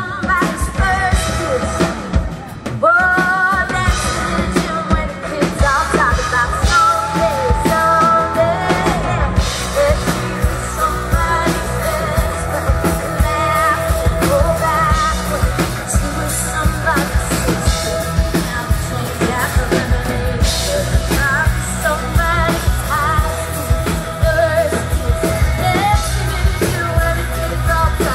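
Live rock band performing: a woman singing lead into a microphone over a drum kit and electric guitars with a steady beat.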